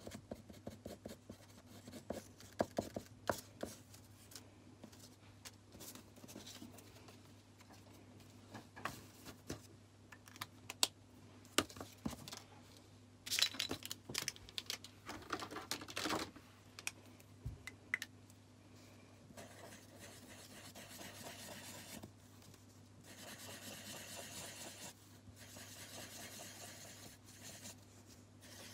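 Pens and paper cut-outs handled on a tabletop: scattered clicks and taps with paper rustling. From about twenty seconds in, a felt-tip pen scratches over paper in short strokes as a shape is coloured in.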